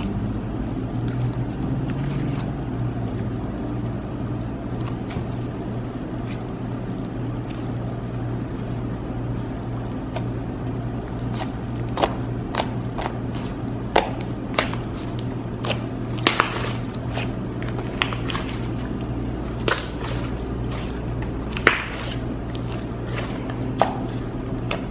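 Thick clay slime being stretched and poked by hand, giving sharp clicks and pops as air pockets burst, more and more of them from about halfway on, over a steady low hum.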